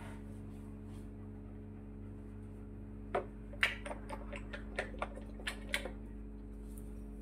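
Plastic shampoo bottles being handled on a tiled floor: a quick run of about a dozen sharp clicks and taps over roughly two and a half seconds, starting about three seconds in.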